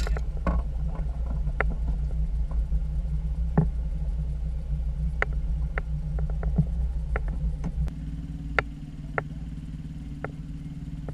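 Small outboard motor running steadily, with scattered sharp clicks and knocks over it. About eight seconds in, the motor's note changes and its level drops slightly.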